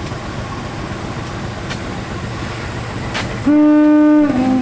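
CC 203 diesel locomotive's horn sounding one short blast about three and a half seconds in, dropping to a slightly lower note as it ends, over steady background noise.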